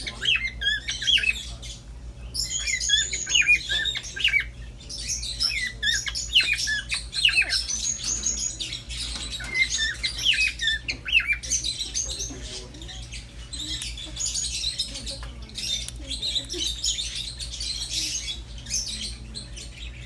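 Small parrots chirping and squawking in quick runs of short calls that fall in pitch, busiest for the first half, then softer, scratchier chatter, over a steady low hum.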